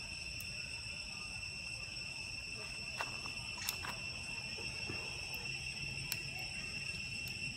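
A steady, high-pitched drone of insects that holds one unchanging pitch. A few sharp clicks stand out, two close together around the middle and one more later.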